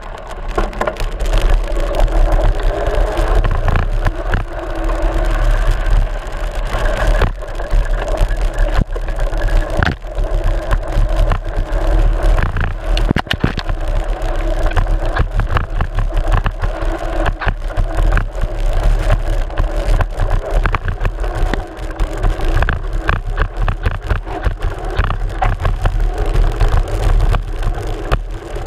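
Mountain bike riding fast down a dirt trail, heard from a camera mounted on the front fork. A steady deep rumble runs under a constant rattle of clicks and knocks as the bike bumps over the ground.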